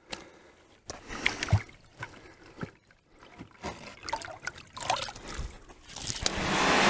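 Scattered splashes, sloshes and knocks of muddy water being disturbed in a gutter runoff settling chamber, irregular and with short gaps. A steady rushing noise swells up near the end.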